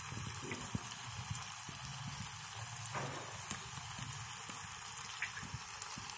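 Rice-flour and jaggery dough disc deep-frying in hot oil and ghee: a steady sizzle with scattered small crackles, and one sharper click about three and a half seconds in.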